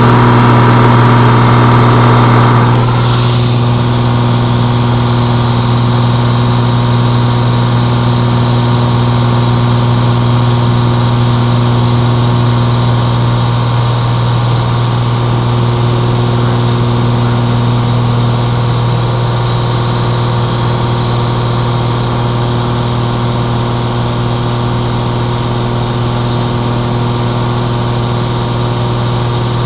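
Aircraft engine droning steadily in the climb after takeoff, a strong low hum with steady overtones. It drops a little in level about three seconds in, then holds.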